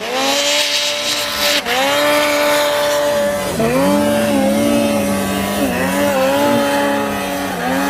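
Mountain snowmobile engine at high revs, climbing a steep chute in deep powder. The engine pitch dips and comes back up several times as the throttle is worked.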